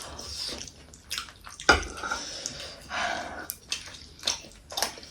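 Close-up eating noises: wet mouth smacks and slurps with scattered sharp clicks, the loudest slurp about two seconds in.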